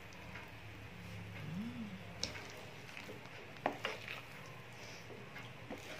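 Thick, nearly cooked ube halaya paste being stirred and mashed in a pan, with a few faint clicks of the stirring utensil against the pan over a low steady hum.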